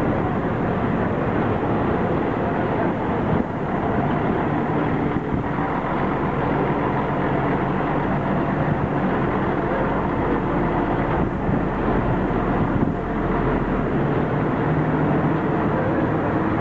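Diesel engine of a large three-axle touring coach running steadily as it drives slowly past, with a couple of brief knocks along the way.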